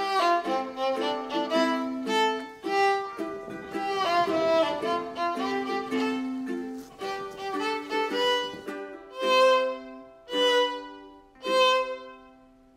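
Background music: a melody of short separate notes over held lower notes, fading out near the end.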